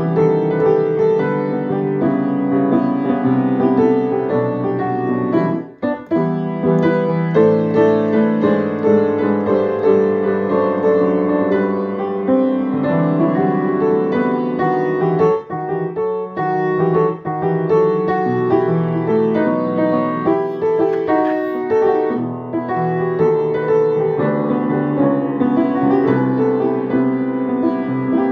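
Solo piano played with both hands, melody over chords, with two brief breaks, one about six seconds in and another about halfway through.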